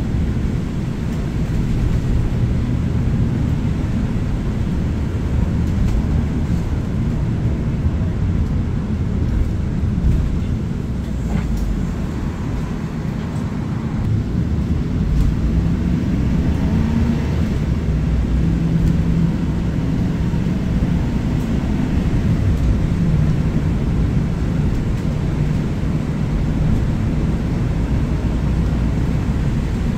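Cabin noise inside a Chevrolet 4500 ARBOC Spirit of Freedom cutaway bus on the move: a steady low rumble of engine and road, with the engine note shifting in pitch about halfway through.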